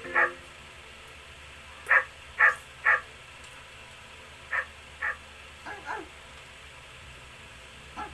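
A dog barking in short runs: a pair, then three quick barks about two seconds in, another pair near the middle, then a few fainter yips.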